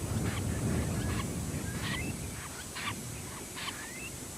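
Eurasian curlew calling: a run of short, harsh notes mixed with short rising whistles, about two a second, over a low rumble that fades after the first couple of seconds.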